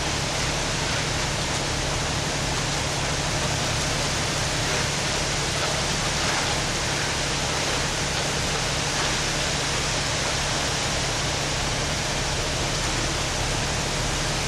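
Cement mixer truck's engine running steadily: a low, even hum under a constant rushing noise.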